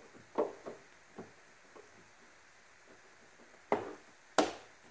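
Plastic cowl-panel end piece being handled and pressed into place: a few light knocks, then two sharp clicks near the end as its tabs snap home.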